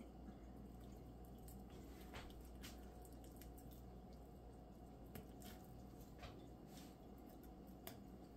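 Faint, scattered wet clicks and squishes of a knife cutting raw chicken meat away from the carcass, over a low steady hum.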